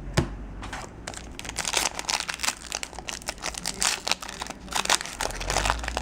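Crinkling and crackling of a foil Yu-Gi-Oh booster pack wrapper being handled and opened by hand, a dense run of irregular crackles.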